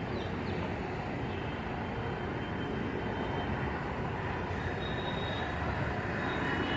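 Diesel bus engine running with a steady low rumble, with bus-station background noise around it.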